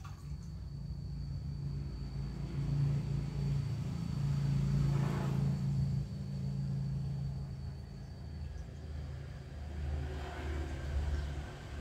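A motor vehicle's low rumble, swelling to a peak about halfway through and fading, then a second swell near the end.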